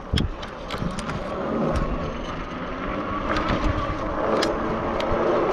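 Riding noise from an electric bike on a dirt trail: steady wind buffeting and tyre rumble, with scattered small clicks and rattles from bumps.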